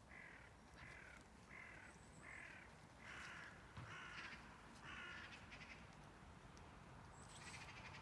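A crow cawing faintly in a run of seven harsh caws, about one every second, then another harsh call near the end.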